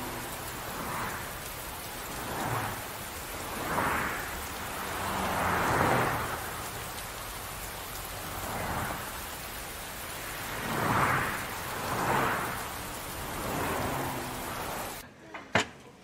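Heavy rain pouring down, swelling louder and fading every second or two like gusts or far rumbles. It cuts off suddenly near the end, giving way to a few sharp clinks.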